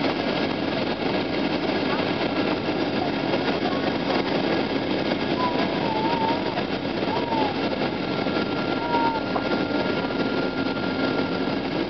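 Steady roar of jet engines and rushing air inside a Boeing 737 airliner cabin on final approach, with a low steady hum under it.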